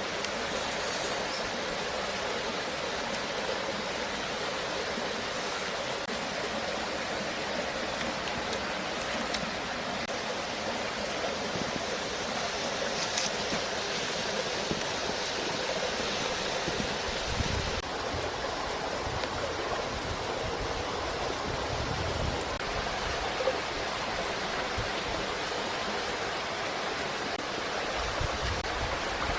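Steady rushing noise like running water, with a few soft low thumps.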